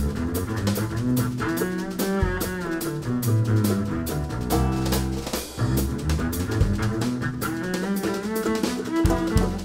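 Bluegrass string band recording with banjo and other string instruments playing a fast instrumental, with a live drum kit played along on snare and cymbals in a steady, busy rhythm.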